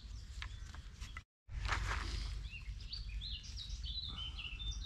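Wild birds singing, with a run of quick high chirping notes from about three seconds in, over a steady low rumble of outdoor noise. Before that come a few faint clicks and a rustle as sticks and cord are handled on the ground, and the sound drops out completely for a moment a little over a second in.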